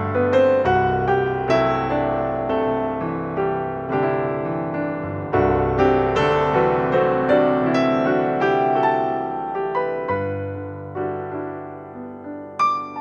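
Background piano music: a gentle melody played as single notes and chords at an unhurried pace.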